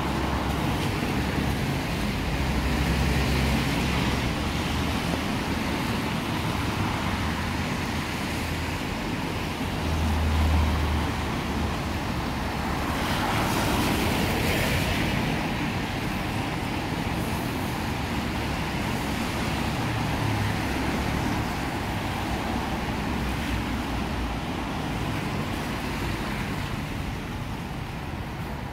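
Road traffic passing on a rain-wet road: tyres hissing through the wet and engines rumbling. A low engine rumble swells about ten seconds in, and a louder hiss of a vehicle going past follows a few seconds later.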